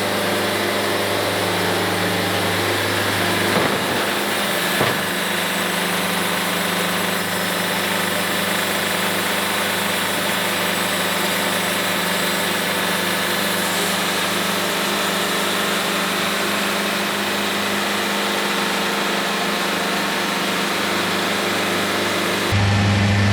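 Wood-Mizer LT70 sawmill's engine running steadily, with two short knocks a few seconds in.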